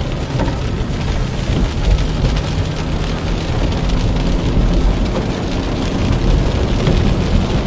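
Steady road, tyre and wind noise inside the cabin of a moving 2006 Honda Accord automatic, with a low rumble and a faint engine hum underneath. The tyres hiss on a wet road surface.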